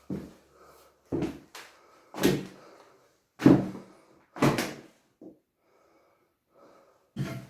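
A string of sharp thuds and knocks in a small, echoing room, roughly one a second, with a louder run of knocks near the end.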